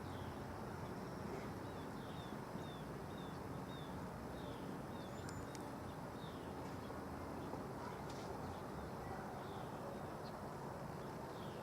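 Small birds chirping faintly, a quick series of short falling chirps over a steady low outdoor rumble, with a few more scattered chirps later on.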